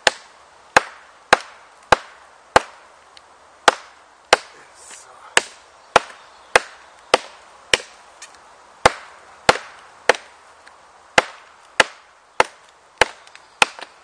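A Richard Kapeller / Joe Vogel survival knife chopping into a notch in a dry log: about twenty sharp, hard wooden knocks, roughly one to two a second, with a few short pauses between runs of strikes.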